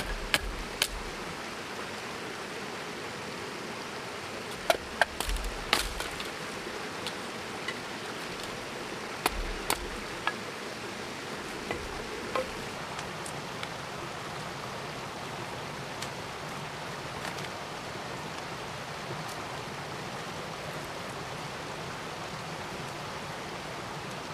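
Steady outdoor background hiss, with a scattered series of sharp knocks and clicks in the first half, a few of them with a dull thud beneath.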